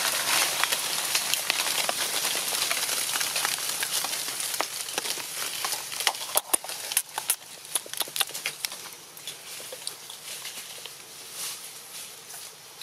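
Dry fallen leaves crackling and rustling under a macaque moving on the leaf litter, with a dense run of sharp crackles in the middle, then quieter.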